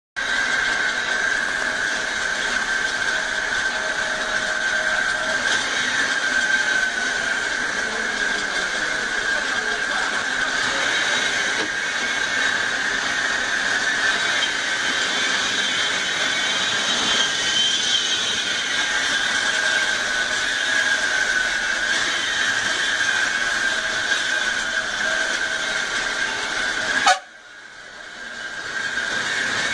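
Floodwater rushing steadily along a flooded street. Near the end the sound cuts out suddenly and fades back in over a couple of seconds.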